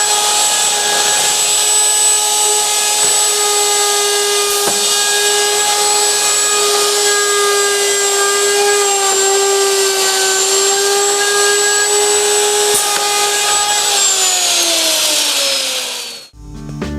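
Hinge-mortising router motor on a Norfield 350H hinge routing station running at speed with a steady high whine. Near the end it is switched off and winds down, its pitch falling until it stops.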